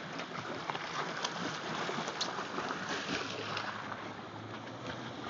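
V4 outboard motor running steadily with a low hum, which drops slightly about three seconds in, under a haze of wind and water noise.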